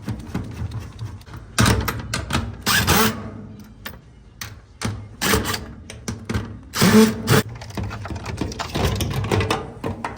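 Irregular mechanical clatter and knocks from hands-on work on a washing machine, over a low steady hum, with two louder rushing bursts of about a second each, near two seconds in and near seven seconds in.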